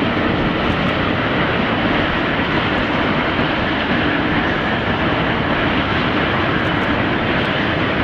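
F-35B Lightning II's Pratt & Whitney F135 turbofan engine running steadily as the jet taxis: a loud, even jet roar that holds without rising or falling.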